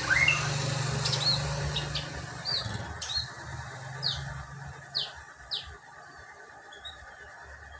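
Lesser racket-tailed drongo calling in its wild-type style: a run of short chirps and whistles, then a few quick downward-sweeping notes, fading off near the end.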